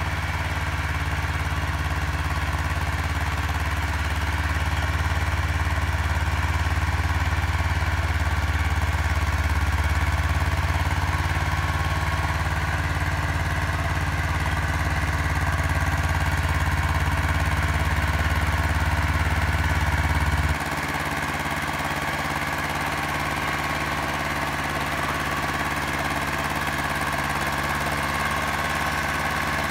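Farm tractor engine running steadily under load as it pulls a ridging implement through tilled soil to form planting beds. The deep rumble drops off abruptly about two-thirds of the way through, leaving a lighter, steady engine drone.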